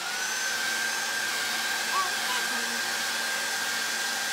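Handheld hair dryer blowing steadily with a thin high whine over the rush of air, drying freshly applied ink on a T-shirt. It comes up to speed right at the start.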